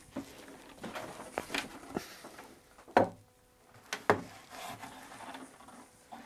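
Wooden knocks and bumps of an antique wooden rocking chair being tipped over and laid on its back on padding on a workbench. The loudest knock comes about three seconds in, with two more about a second later.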